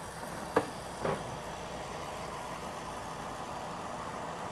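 Electric mixer running steadily, whipping heavy cream, with a couple of light knocks in the first second or so.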